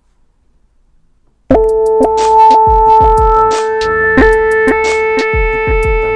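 Teenage Engineering OP-Z synthesizer starting suddenly about a second and a half in. Its beat of deep kick-drum thumps and sharp hi-hat clicks plays under a held chord of synth-lead notes played on its keys.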